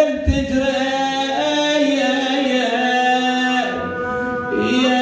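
A man chanting an Arabic mourning lament for Imam Husayn, singing the words "ودموعك تجري" and then drawing out long, wavering held notes.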